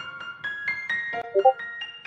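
Background piano music: a light melody of quick single notes, with a short run of lower notes, the loudest part, about a second and a half in.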